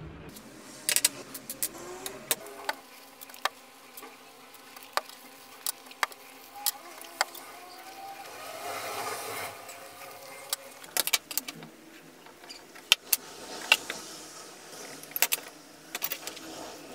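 Small clicks and taps of a steel cleaver blank, handle scales and brass pins being picked up and set down on a wooden tabletop, with a couple of soft swells of rustling between them.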